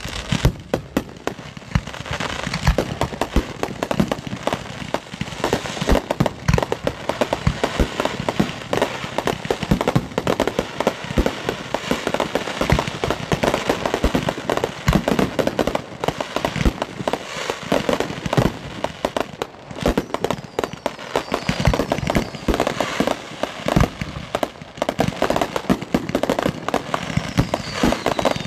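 Professional fireworks display in a dense barrage: many aerial shells and rising comets bursting in quick succession, a near-continuous run of bangs and booms with no pause.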